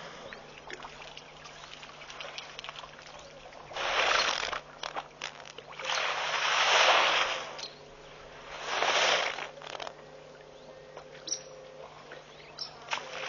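Water splashing and pouring in three bursts, the middle one the longest and loudest, as an African elephant in the shallows of a waterhole throws water about. A faint steady hum runs underneath.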